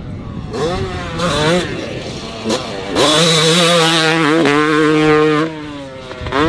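2005 Yamaha YZ250 two-stroke dirt bike engine revving in short rising bursts, then held at high revs for about two and a half seconds. It drops off and climbs again near the end.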